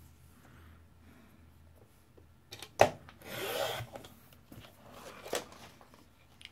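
Fiskars paper trimmer cutting a sheet of pattern paper: a couple of sharp clicks as the blade carriage is set, then a short rasp as the blade is slid along the rail through the paper, and one more click about five seconds in.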